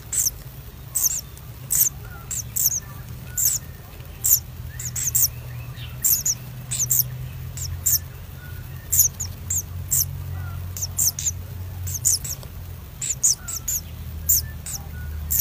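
Common kingfishers in the nest burrow giving short, shrill high-pitched chirps, often in quick pairs, about one or two a second, over a steady low hum.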